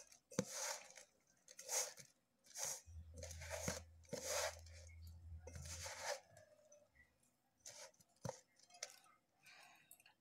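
A hand squeezing and kneading shredded cabbage with spiced flour in a steel bowl, a crunchy rustle with each squeeze about once a second, fainter in the last few seconds. The mixture is being worked stiff without added water, for crisp pakoda.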